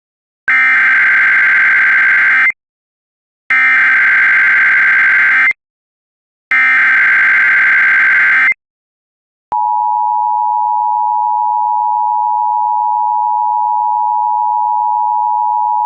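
Emergency Alert System SAME header: three bursts of warbling data tones, each about two seconds long with a second of silence between, encoding a Child Abduction Emergency (CAE) alert. About nine and a half seconds in, the steady two-tone EAS attention signal begins and holds.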